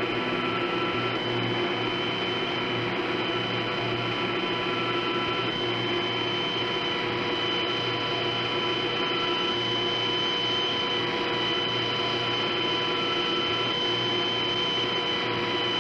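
Hydroelectric generators in a power-station hall humming steadily: an unchanging drone with several high whining tones held constant over it.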